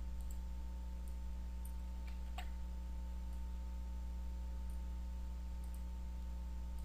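Steady low electrical hum with a few faint, scattered computer mouse clicks; the most distinct click comes about two and a half seconds in.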